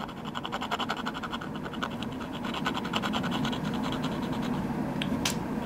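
Fast scratching of a small metal tool's tip scraping red colouring off drawing paper, in quick repeated strokes, several a second. The red is not coming off.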